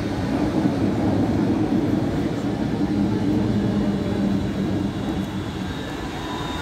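Barcelona Metro Line 1 series 4000 train running through a tunnel, heard from inside the car: a steady, loud rumble of wheels on rails and running gear. A low hum in it drops in pitch about two seconds in, and the noise eases a little near the end.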